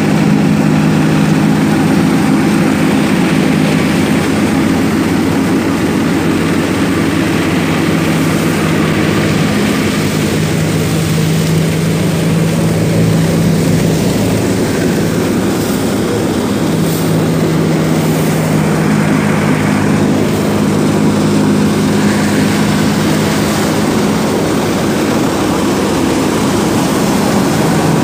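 Tractor-driven mustard thresher running and threshing: a loud, steady mechanical drone with a low hum from the spinning drum and blower, driven off the tractor's engine.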